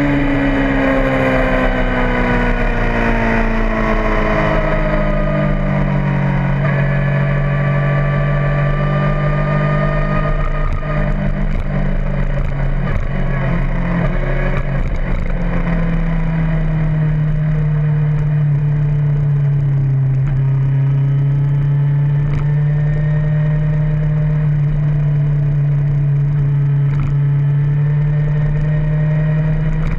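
A vehicle's engine running at speed around a race track, its pitch falling over the first several seconds as it slows, then holding fairly steady with small rises and dips, over constant wind and road noise.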